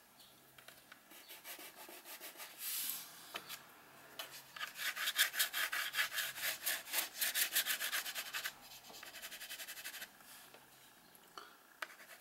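Black China marker (grease pencil) shading on watercolor paper in quick back-and-forth scribbling strokes. A fast, dense run of strokes in the middle, lighter strokes after it, nearly stopping near the end.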